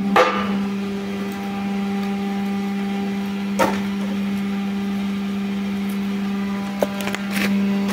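Hydraulic log splitter running, its motor and pump giving a steady hum, with four sharp cracks of wood splitting and knocking: a loud one right at the start, one about halfway, and two close together near the end.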